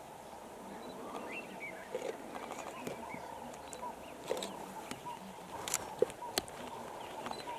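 Lions feeding on a buffalo carcass: irregular wet clicks and crunches of chewing and tearing at the meat, with small birds chirping in the background.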